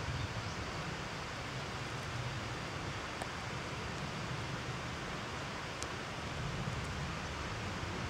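Steady outdoor wind noise and hiss, with a low rumble that eases off and swells again near the end, and a couple of faint ticks.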